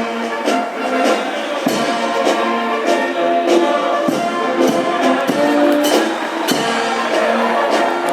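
Brass band playing a tune, trumpets and trombones over a steady drum beat of about two strokes a second.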